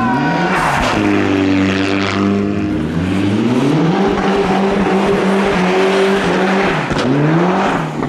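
Mitsubishi Lancer Evolution rally car's engine at high revs while the car slides through a snowy corner, its note held steady and then climbing about three seconds in. A sharp crack about seven seconds in, with a brief drop in revs, before the engine note rises again as the car pulls away, over the hiss of tyres spraying snow.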